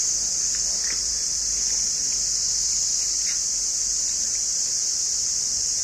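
Steady high-pitched insect chorus of cicadas or crickets, one unbroken drone.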